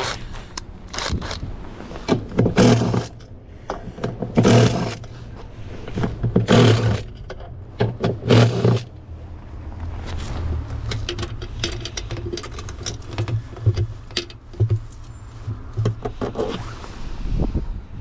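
Makita cordless impact driver run in short bursts to drive out the washing machine's screws, four bursts of under a second each about two seconds apart. Light clicks and clinks of loose parts being handled follow.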